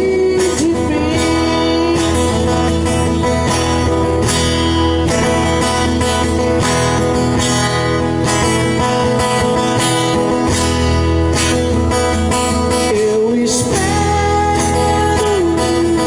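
Acoustic guitar strummed steadily while a man sings, holding long sliding notes near the start and again near the end, picked up by the camera's own microphone.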